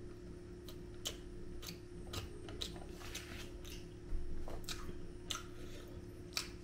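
A person chewing a mouthful of food: irregular wet clicks and small crunches, with a steady low hum underneath.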